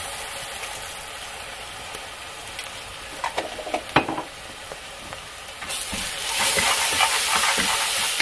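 Onions, curry leaves and green chillies frying in coconut oil in an aluminium pressure cooker with a steady sizzle, and a couple of sharp taps three to four seconds in. From about six seconds in the sizzle grows louder as a wooden spatula stirs freshly added ginger-garlic paste through the hot oil.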